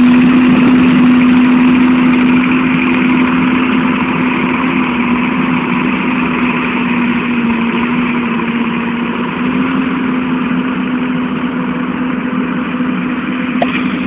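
John Deere 7920 tractor's six-cylinder turbo diesel engine running at a steady pitch, gradually getting quieter.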